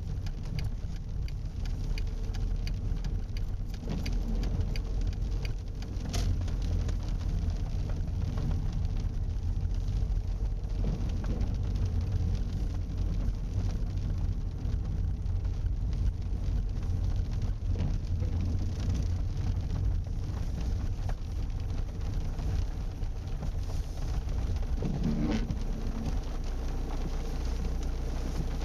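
Seat Leon 1M driving: a steady low rumble of engine and tyre noise, with a brief change in the sound about three seconds before the end.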